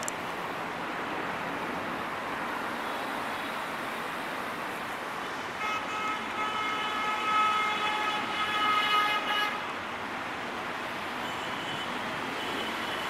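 Diesel locomotive air horn (EMD GT42ACL) sounding one long blast of about four seconds, a chord of several steady tones, starting a little before halfway through, over steady background noise.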